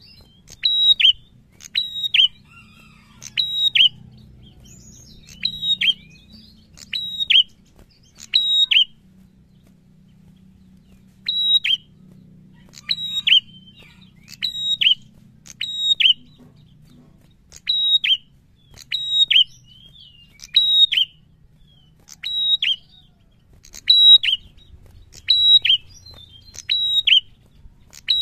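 Caged tailorbird calling loudly in a steady run of phrases, each two or three sharp, high, quickly falling notes, about one phrase every second and a half. There is a pause of about two seconds roughly a third of the way through.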